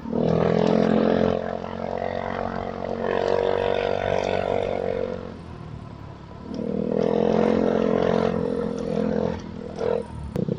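Motorcycle engine pulling under throttle twice: a steady note for about five seconds, an easing off, then about three more seconds of pull.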